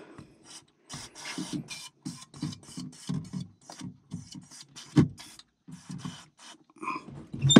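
John Deere 5075E tractor seat suspension creaking and squeaking in short strokes, about twice a second, as the seat is rocked, with a couple of sharp knocks. The owner puts the squeak down to the seat's spring or shock.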